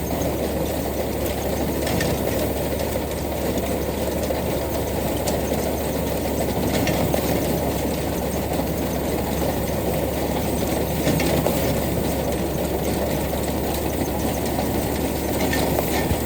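Tractor engine running steadily at an even level.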